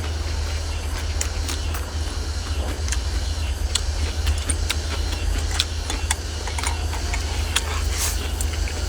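Close-up eating sounds: wet chewing, lip smacks and the odd clink of chopsticks or a bowl, as small sharp clicks every second or so, over a steady low rumble.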